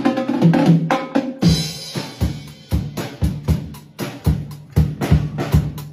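Background music with a steady drum beat over a low bass line.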